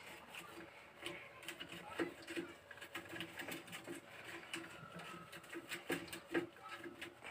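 Wooden hand churner (mathani) twirled back and forth in a steel pot of curd and sugar, making a quick, uneven run of faint clicks, taps and sloshes as the lassi is mixed.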